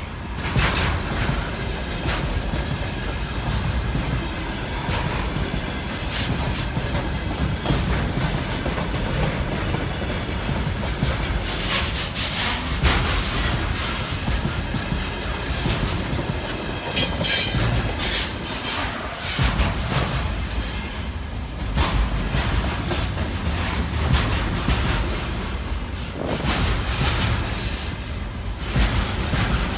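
Container freight train passing close by: the steady rumble of its wagons' wheels on the rails, with repeated clickety-clack knocks as the wheels cross the rail joints.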